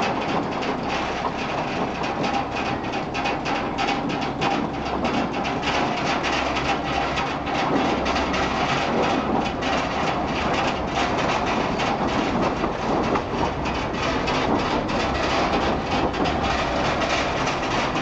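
A house shaking in an earthquake: a continuous rattling clatter over a low rumble.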